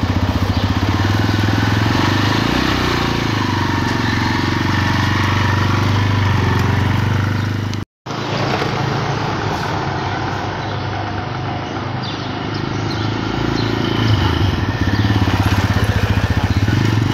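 TVS Raider 125 motorcycle's single-cylinder engine running steadily as the bike pulls away and rides off, the sound cutting out for a moment a little before halfway.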